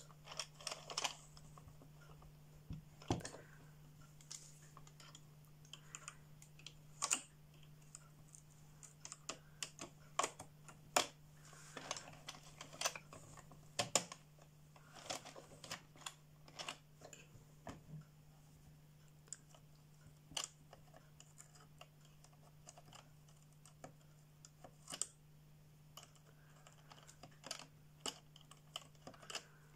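Hand-cranked plastic circular knitting machine turned slowly through its cast-on round: irregular, sparse clicks and clacks from the needles and crank, with pauses between them. A faint steady low hum lies underneath.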